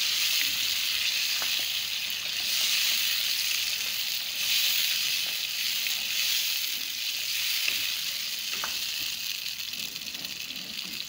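Mutton pieces and freshly added blended tomato purée sizzling in hot oil in a nonstick pan as the tomato's water cooks off, with a steady hiss. A wooden spoon stirring through it gives a few light scrapes.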